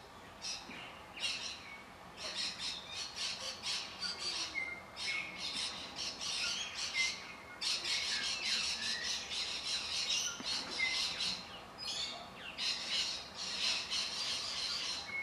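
Laughing kookaburra calling: a rapid cackling laugh of fast repeated notes, coming in about three bouts with short breaks between them.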